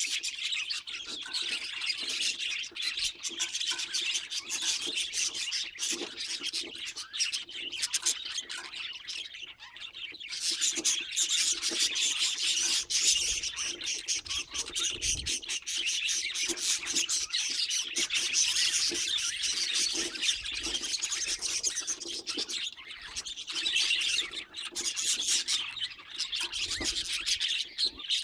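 Budgerigar chattering and warbling without pause, a busy stream of high chirps mixed with clicks.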